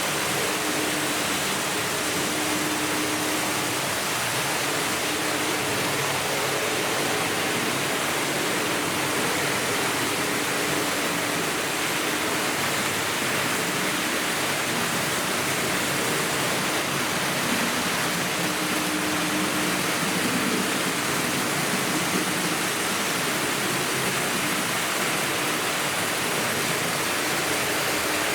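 Several Märklin H0 model trains running at once, mostly with 1960s and 70s Märklin locomotives: a steady rushing of metal wheels on the track and electric motors, with a faint motor hum that comes and goes.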